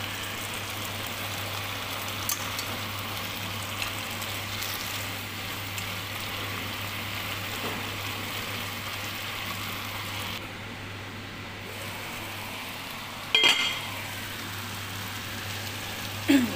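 Choy sum and pancit canton noodles sizzling steadily in a pan of sauce, with a few light clicks of a spatula and one sharp clink against the pan about 13 seconds in.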